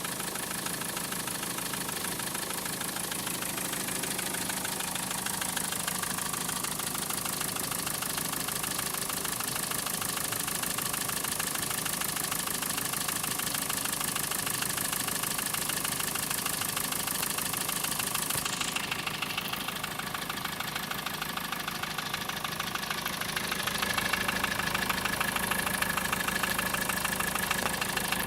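Car engine idling steadily with a fast, even knocking running through it, the knock the vehicle is being checked for. It gets a little louder about three-quarters of the way through.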